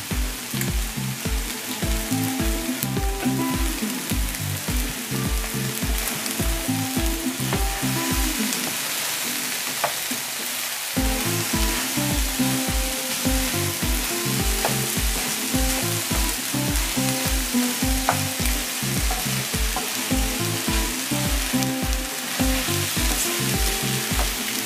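Background music with a steady bass beat, over scrambled eggs sizzling in a frying pan as a wooden spatula stirs them. The beat drops out for about three seconds near the middle.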